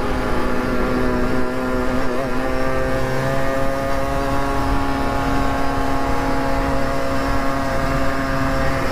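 Motorcycle engine running at a steady speed while riding, its pitch held level.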